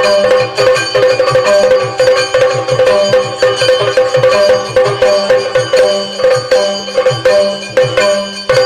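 Yakshagana instrumental accompaniment: a chende drum beaten fast with sticks, together with maddale drum and small hand cymbals keeping time over a steady drone.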